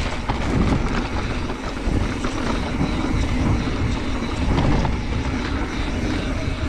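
Mountain bike riding along a dirt trail: a steady rumble of wind on the microphone over the tyre noise, with scattered light clicks and rattles.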